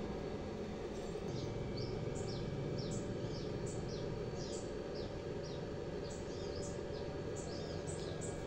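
Small birds chirping: many short, quick downward chirps, several a second, starting about a second in, over a steady low background rumble.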